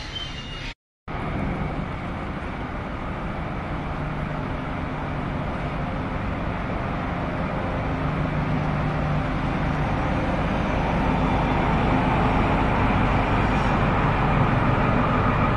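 Diesel electric multiple unit (DEMU) train running past at close range: a steady rolling rumble with a low engine hum, growing steadily louder as the diesel power car comes alongside. A brief silent gap about a second in.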